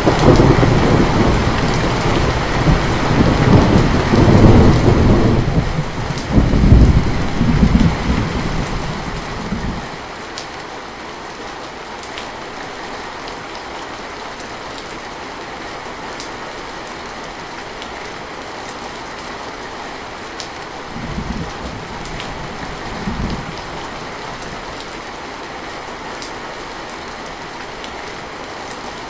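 Heavy rain falling steadily, with a long loud roll of thunder rumbling from the start and dying away about a third of the way through, then two short, softer rumbles of thunder later on.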